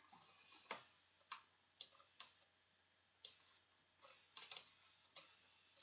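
Near silence broken by a few faint, scattered computer mouse clicks, about eight of them at uneven intervals.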